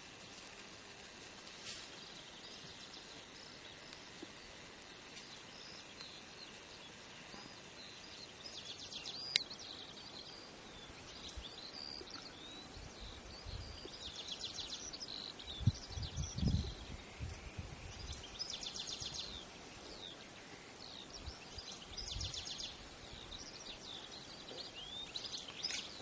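Small songbirds chirping and trilling on and off, in short high calls and a few rapid trills, over a faint steady outdoor hiss. A few low rumbles come in the middle.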